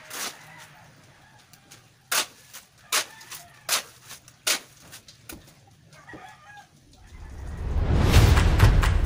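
Five sharp knocks about half a second to a second apart, from a steel shovel working a gravel-and-sand pile, with a rooster crowing faintly in the background. Background music then fades in and grows loud near the end.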